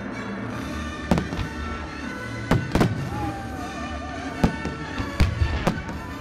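Fireworks display with music playing throughout, and a series of sharp bangs from bursting comets and shells, about seven of them, the loudest about a second in and around two and a half seconds in.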